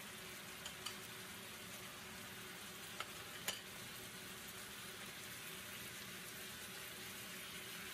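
Pork and shrimp sizzling steadily as they are stir-fried in a pan, with a few sharp clicks of the chopsticks and wooden spatula against the pan.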